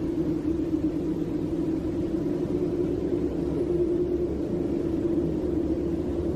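Steady low droning hum over a low rumble, unchanging throughout.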